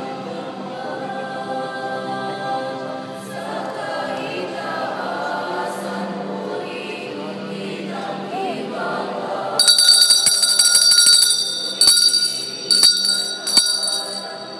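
Choir-like singing. About two-thirds of the way in, a loud, high, bell-like metallic ringing breaks in with rapid strikes and lasts about four seconds.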